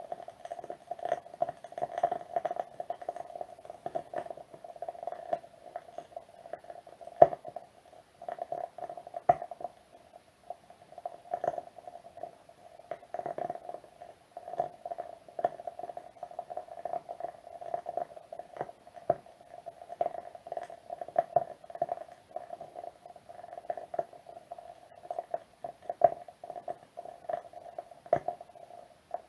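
Wood wick candle burning with a continuous soft crackle: dense, irregular small pops and clicks, with a few sharper pops now and then.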